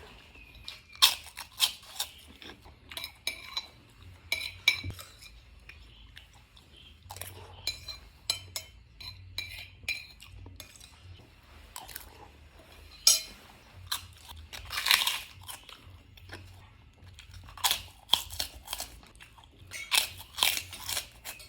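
Close-up eating sounds: crunchy chewing with cutlery clinking against a plate, in irregular bursts.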